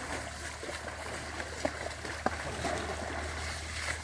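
Shallow river water sloshing and splashing around people bathing elephants, over a steady low rumble, with two short sharp splashes about a third of the way and halfway through.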